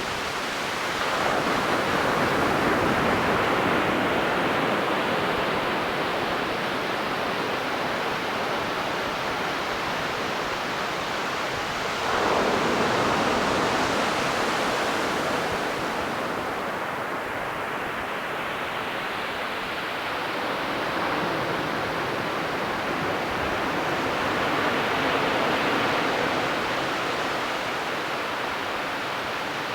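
Ocean waves breaking and washing up a beach: a steady surf hiss that swells as each wave comes in. One swell comes about a second in, a sharper one near the middle, and a softer one later.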